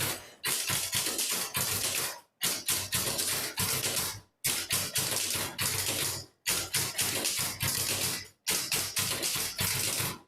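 Several old manual typewriters played together as a percussion ensemble: fast, dense clattering of keystrokes in rhythmic phrases of about two seconds, each cut off sharply by a brief silence.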